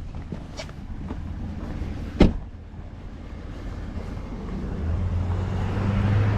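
A vehicle engine running, growing louder over the last second and a half, with one sharp knock about two seconds in.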